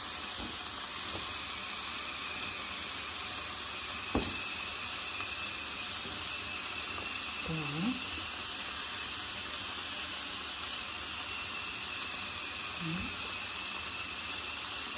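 Shrimp frying in butter in a pan, a steady sizzle, with a single sharp click about four seconds in.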